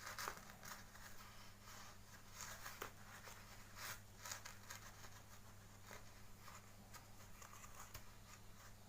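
Faint scattered clicks and rustles of a toy and its packaging being handled during an unboxing, over a steady low hum.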